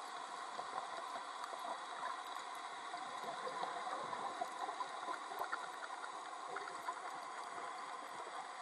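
Underwater ambience heard through a camera housing: a steady hiss with fine crackling, and bubbling from a diver breathing out with his closed-circuit rebreather taken off.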